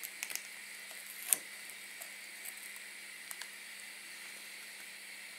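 A few light metal clicks and taps, with one sharper click about a second in, from long-nose pliers handling the small metal tub of a soldering tip cleaner. A steady hiss runs underneath.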